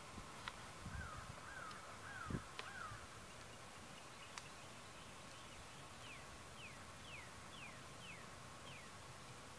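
Birds calling outdoors: a run of four short rising-and-falling calls about a second in, then six short downward-sliding whistles from about six seconds, over a faint steady hum. A single low thump sounds a little past two seconds.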